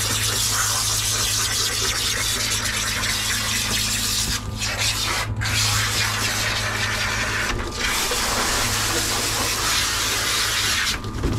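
Water from a handheld shower sprayer hissing onto a wet dog's coat, breaking off briefly a few times, with a steady low hum beneath.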